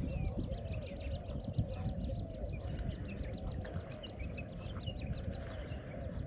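Many birds calling and chattering together, a dense run of short repeated calls over a low rumble.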